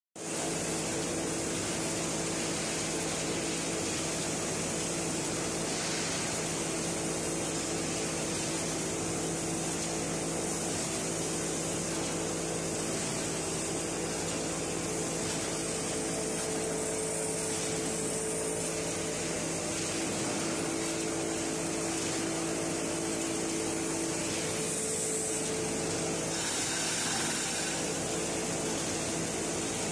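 Steady hum of running industrial machinery, made of several steady tones, with a higher tone coming in for a few seconds about midway and a brief rise in hiss near the end.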